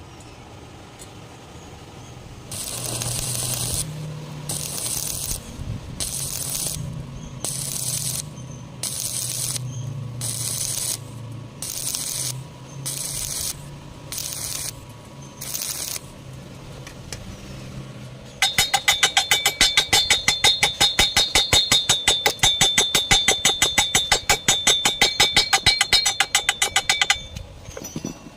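About a dozen short hissing bursts, each under a second, over a low hum, followed by a fast, even clicking or pulsing at about five a second that stops shortly before the end.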